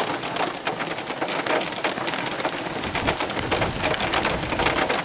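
Pea-sized hail and rain falling, a dense patter of many small ticks. A low rumble of thunder comes in about three seconds in.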